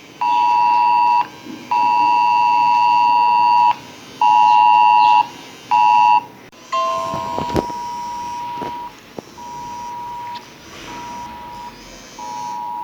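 Smartphone Cell Broadcast emergency alert tone for an 'Extreme' alert, here a government test message. A loud two-pitch beep sounds in bursts of one to two seconds with short gaps. From about halfway it gives way to a quieter single-pitch beep in shorter pulses, with a few clicks.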